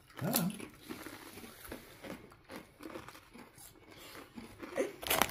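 Crisp chili cheese chips being bitten and chewed, a scatter of short crunches. A chip bag starts to crinkle loudly right at the end.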